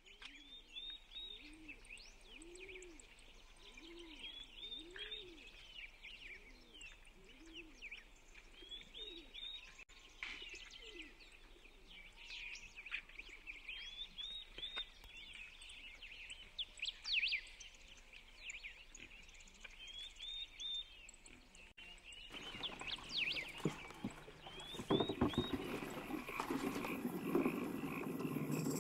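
Songbirds singing in repeated short, high phrases. A low call repeats about once a second for the first ten seconds or so. A steady rushing noise comes in after about twenty seconds.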